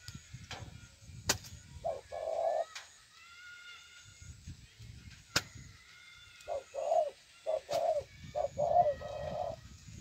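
Spotted doves cooing: one short coo about two seconds in, then a run of repeated coos from about six and a half to nine and a half seconds. Two sharp clicks come about a second in and again about five seconds in, with faint higher chirps between the coos.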